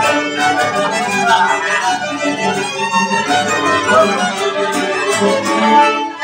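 Several violins playing an Irish tune together in a lively jam, with a classical guitar strumming and a cello underneath.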